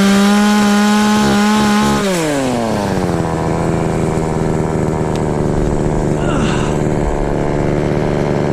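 Two-stroke chainsaw held at full throttle for about two seconds, then let back to a steady idle for the rest of the time.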